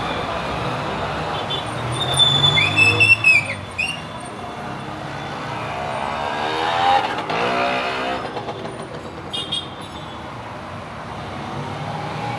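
Road traffic going past: a steady rumble, with a short high-pitched arching tone about two seconds in and a vehicle passing by, its engine pitch sliding up and down, around the middle.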